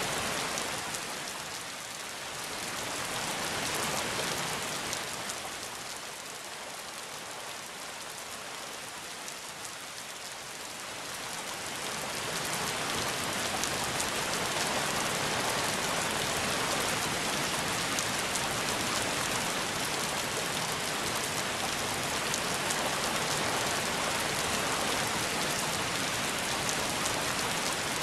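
Steady rushing hiss with a fine patter through it, of the kind rain makes. It softens a few seconds in and swells back up about twelve seconds in, then holds steady.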